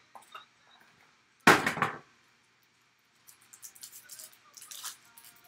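A few light clicks of cardboard being handled, a single loud thump about a second and a half in, then a foil trading-card pack crinkling as it is torn open.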